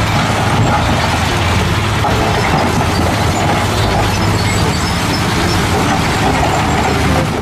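Diesel dump trucks running steadily with their beds tipped up, rock and earth sliding and pouring off the beds onto the pile.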